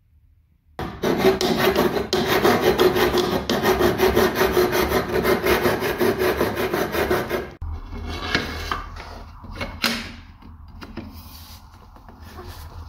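Hacksaw cutting a notch into a white threshold trim profile with rapid back-and-forth strokes, starting about a second in and stopping abruptly about seven seconds in. Quieter handling noises follow, with one sharp click.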